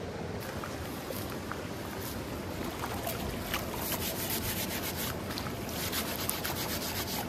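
A handful of grass scrubbing a ridged iron grill plate in shallow river water, in quick rubbing strokes that come thicker from about halfway, over the steady rush of the stream.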